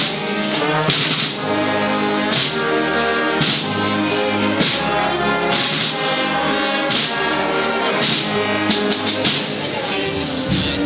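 Brass band playing a slow processional march, with several brass instruments holding chords and a steady beat about once a second.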